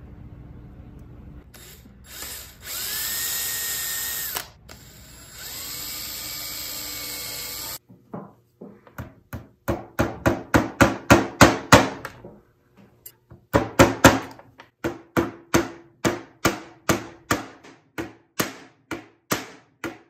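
A small drill runs twice for about two seconds each, the first run rising in pitch as it spins up, boring holes into the back of a walnut frame at marked spots. Then a claw hammer drives small nails for a metal picture hanger into the walnut with a quick series of light taps, pausing once about halfway through.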